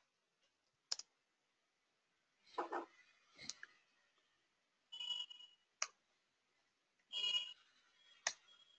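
Faint computer keyboard and mouse clicks: a handful of isolated sharp clicks spaced a couple of seconds apart, with a few softer short sounds between them.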